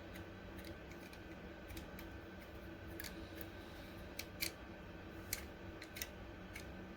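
Scattered light, sharp clicks, about half a dozen, the loudest about four and a half seconds in, over a faint steady hum.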